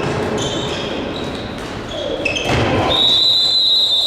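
Handball game in a sports hall: sneakers squeak on the court floor and the ball bounces, then about three seconds in a long, steady referee's whistle blast begins.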